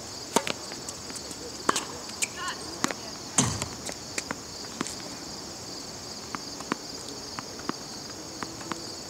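Tennis ball struck by rackets: a serve hit about half a second in, further sharp hits and bounces over the next few seconds, and a heavier thud about three and a half seconds in, then fainter scattered ticks. Behind it, insects trill steadily in a high pulsing chorus.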